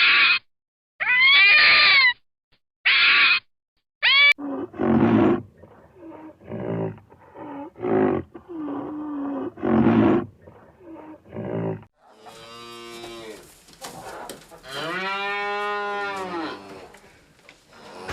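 A string of different animal calls. For about the first four seconds there are short, repeated kitten meows. Then comes a series of cattle moos, and near the end a longer, drawn-out call.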